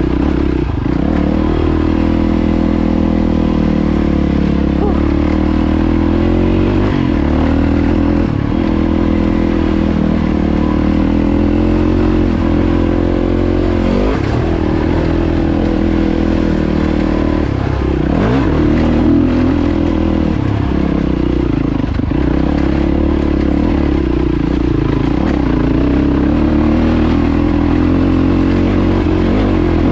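Yamaha WR450F's single-cylinder four-stroke engine running as the dirt bike is ridden along a rough gravel track, its pitch rising and falling gently with the throttle. A few brief knocks from the rough ground break in now and then.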